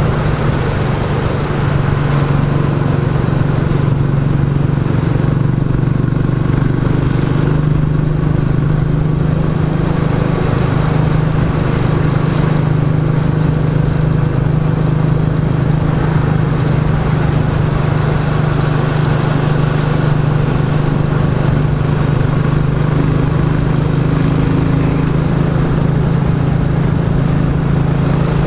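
Royal Enfield Classic 350's single-cylinder engine running steadily while riding, through a Hitchcock's de-cat exhaust pipe, its note holding almost level throughout.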